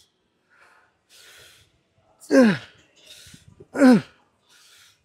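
A man breathing hard in short, noisy breaths and groaning loudly twice with effort, each groan falling in pitch, straining through a set of walking lunges.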